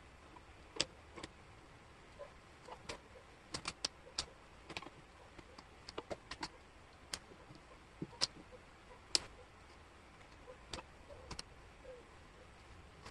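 Small wooden jigsaw puzzle pieces clicking and tapping against each other and the tabletop as they are moved and fitted together. The clicks are sharp and irregular, sometimes coming in quick clusters of two or three.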